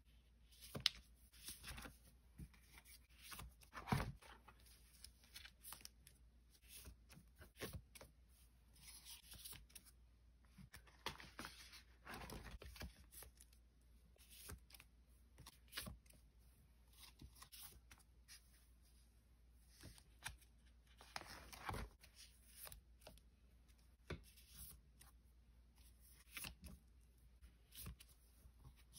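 Quiet handling of Pokémon trading cards and their packaging: scattered rustles and light taps, with two longer scraping rustles about twelve and twenty-one seconds in.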